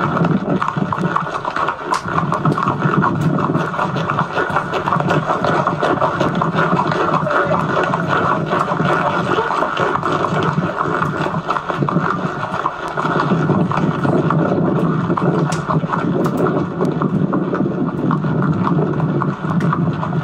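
Camcorder soundtrack of a bareback horse ride played back through a television speaker: steady rough noise with many small knocks and rubbing from the ride.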